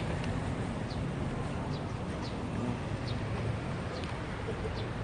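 Sparrows chirping in short, scattered calls over a steady low rumble of street traffic.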